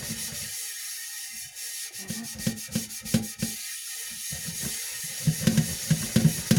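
A soot-blackened metal pot being scrubbed with cleaning paste: quick rubbing strokes, about three or four a second, after a short pause, strongest near the end.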